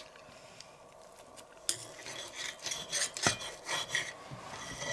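Knife and fork cutting a bacon-wrapped spring roll on a porcelain plate: the knife scrapes and rasps through the crisp bacon and against the plate in irregular strokes, starting about a second and a half in, with one sharp clink of metal on china just after three seconds.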